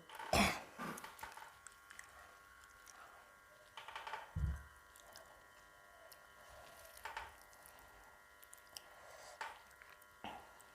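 Faint eating sounds: a few scattered short squishes and smacks as rice and jackfruit curry are mixed by hand and chewed, over a faint steady hum.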